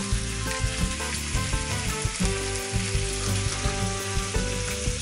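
Two chicken thighs sizzling in olive oil in a frying pan, a steady dense crackle of spitting fat.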